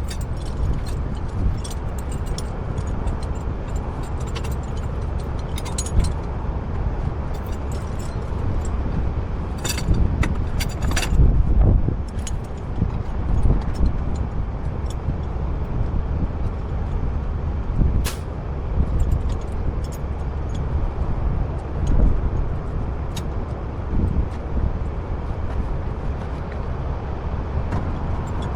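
A heavy truck engine running steadily with a low rumble, with scattered clanks and knocks. The loudest come about ten to twelve seconds in.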